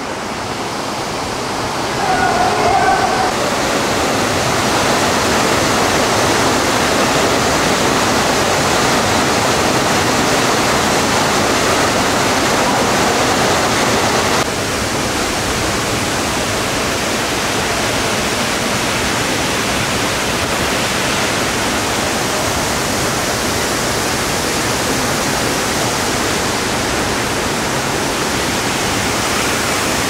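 Steady rushing of water from the Marquiri waterfall and the shallow stream running over its stony bed, a full even hiss that drops slightly in level about halfway through.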